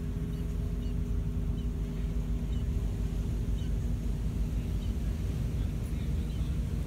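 Steady low outdoor rumble with a faint hum, dotted with faint, short, high chirps.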